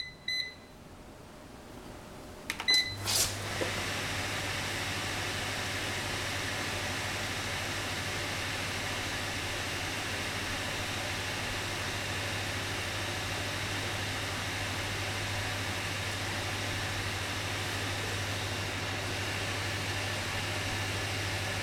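Microwave oven keypad beeping a few times, a click as it starts, then the oven running with a steady hum.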